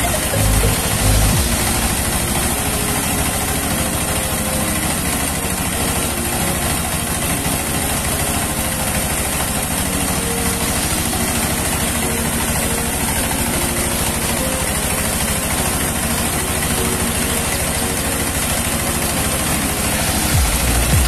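Rice milling machine running steadily.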